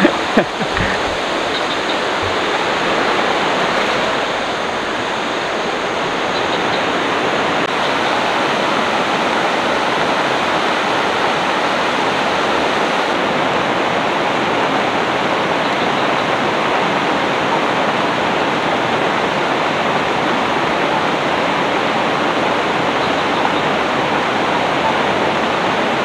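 Steady rushing of a river flowing toward a waterfall, a constant loud wash of water. A couple of brief knocks sound at the very start.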